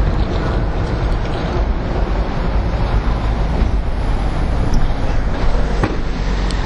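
Steady city-street noise of traffic, with a low rumble of wind on the microphone.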